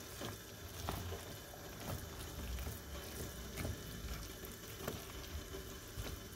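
A spoon stirring thick, creamy risotto in a pot, with scattered light clicks of the spoon against the pot. This is the final creaming stage (mantecatura), working in melted gorgonzola and grated parmesan.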